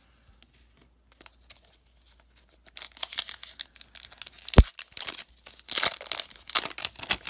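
Foil booster-pack wrapper being torn open and crinkled, starting about three seconds in after a few faint taps, with one sharp knock about halfway through.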